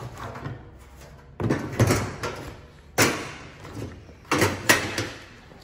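Caster wheels being set down one after another onto the Weber Spirit grill's metal base panel: about five sharp knocks, each dying away quickly.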